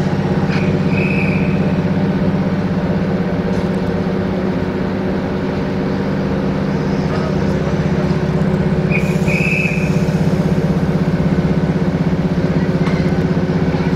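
A locomotive standing with its machinery running steadily: a constant low drone. Two brief high-pitched squeaks come about a second in and again about nine seconds in.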